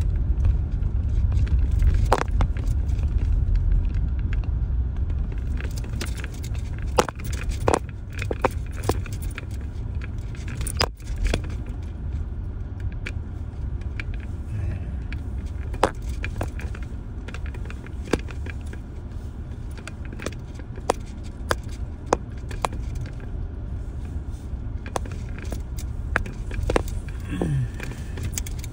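Car driving over a rough sandy track, heard from inside the cabin: a steady low rumble of engine and road, with frequent sharp rattles and clicks from loose things inside the car.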